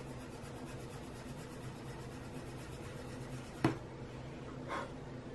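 Faint scratching of a Prismacolor colorless blender pencil rubbed in small circles on paper, with a steady low hum underneath. A single sharp click about three and a half seconds in.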